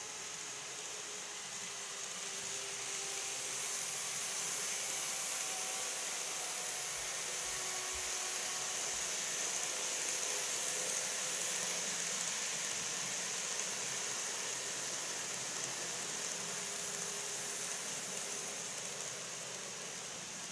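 Model train running on its track: a steady hiss of wheels and motor with a faint whine that swells louder over several seconds and then fades back down as the train passes.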